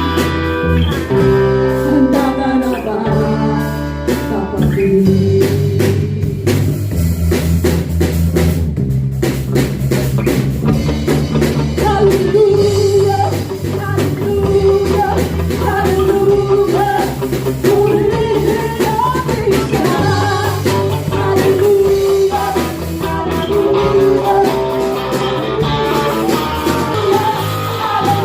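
A band playing with drum kit, bass and guitar, and a singing voice over the top.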